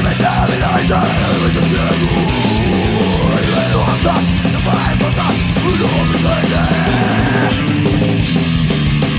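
Loud live rock band playing an instrumental passage of a song, with distorted electric guitars over bass and drums.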